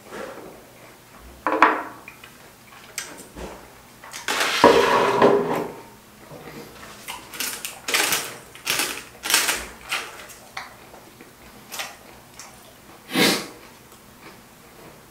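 Close-up eating sounds: metal chopsticks clicking against a plastic container and bowls, with a longer slurping sound about four seconds in.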